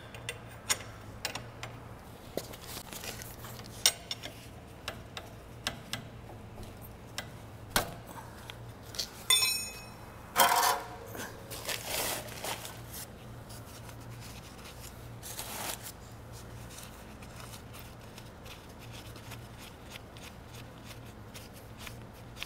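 Small metallic clinks and scrapes of the oil drain bolt being unscrewed and handled by hand under a Honda Super Cub's engine, with a short ringing ping about nine seconds in and a few brief rustling noises. A steady low hum runs underneath.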